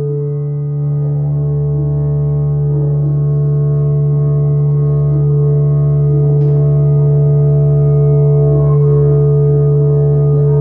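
Sustained electronic music drone through an amplifier: several steady held tones layered into one unbroken hum, with a brief click about six seconds in.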